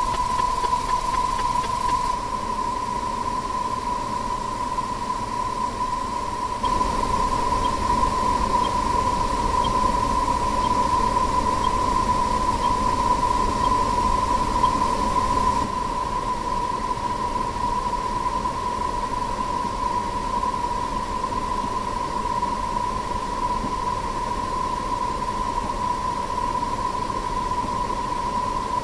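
A dense wash of sound effects sped up far past recognition, heard as a continuous hiss with a steady high beep tone held throughout. The hiss shifts in loudness and colour a few times.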